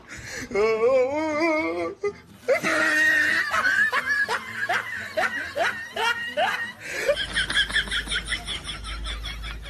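Human laughter in several bouts: a wavering laugh, then a run of sharp ha-ha bursts about two a second, then quicker, higher-pitched giggling near the end.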